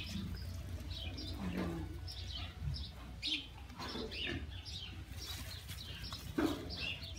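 Small birds chirping: many short, high calls scattered throughout, over a low steady rumble.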